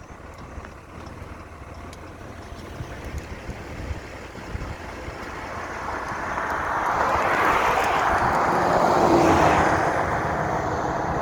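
A vehicle passing by on the road, its tyre and engine noise swelling from about halfway through, loudest near the end and then easing off, over a low rumble of wind on the microphone.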